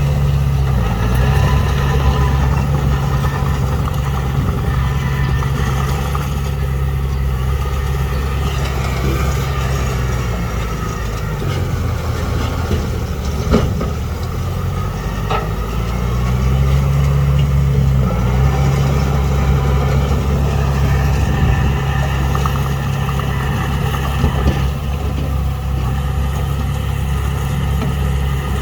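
Heavy diesel engine of earthmoving machinery running under load, its note easing off and dropping about ten seconds in, then picking back up about six seconds later. A single sharp metallic clank sounds about halfway through.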